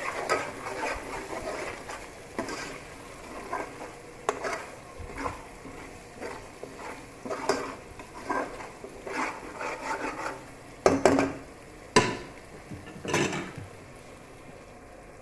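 A metal spoon stirring and scraping an onion, garlic and spice masala as it fries in oil in a metal pot, over a low sizzle. Irregular clicks and scrapes of the spoon against the pot, with two sharp knocks of the spoon on the pot about two-thirds of the way through.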